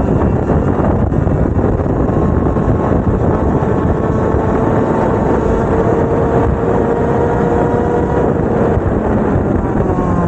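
Two-stroke racing kart engine running, its note shifting slowly in pitch under a dense, steady rush of noise.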